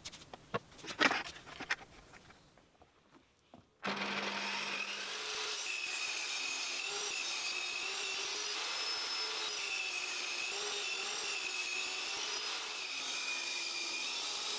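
A few light knocks as a board is handled, then from about four seconds in a table saw runs steadily, ripping a wooden board lengthwise into strips. Its pitch wavers a little as the blade takes the wood.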